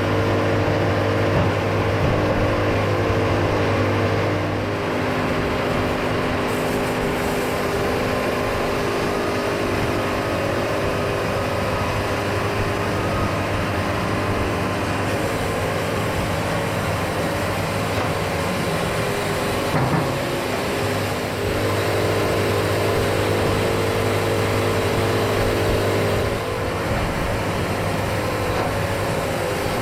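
Band sawmill running: a steady engine drone with fixed pitch that strengthens and eases off a few times as the load changes.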